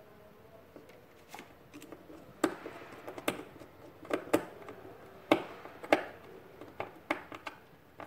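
Hands handling a wire, screwdriver and small electrical parts on a tabletop: a string of irregular clicks and light knocks, about a dozen, the loudest a little past two seconds in and around three, four, five and six seconds.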